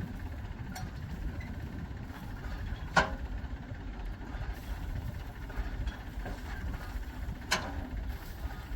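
Diesel engine of heavy machinery running steadily at low revs, with two sharp knocks, the first and louder about three seconds in and the second about seven and a half seconds in.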